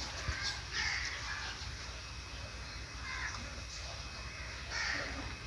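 A bird calling outside, a few short calls spaced irregularly, over a low steady hum.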